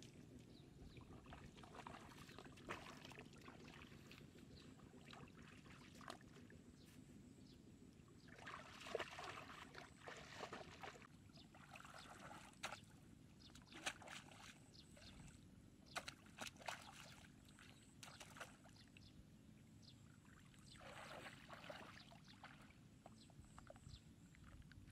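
Faint splashing and sloshing of shallow water as someone wades and handles a wire fish trap, coming in several short bursts over a low steady rumble.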